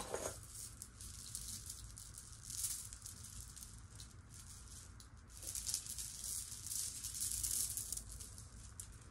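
Faint rustling and handling noise that comes and goes, louder a couple of seconds in and again in the second half, with a soft click at the start.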